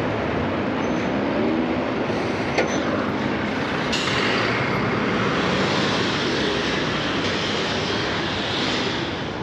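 Busy street ambience outside a railway station: a steady wash of traffic and rail-vehicle noise. A single sharp click comes about two and a half seconds in.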